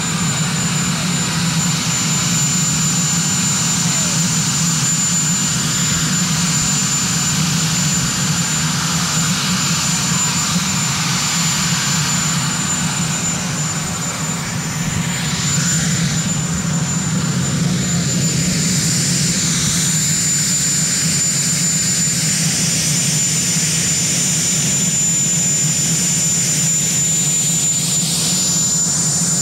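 Marine One, a Sikorsky VH-3D Sea King helicopter, running on the ground with its turbine engines going: a steady high whine over a constant low drone.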